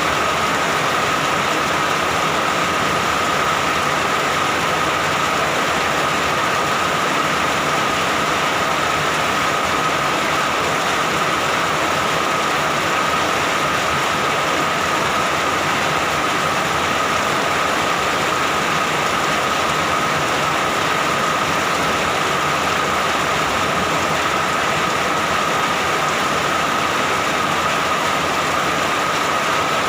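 Steady rain, an even, unbroken hiss that holds the same level throughout.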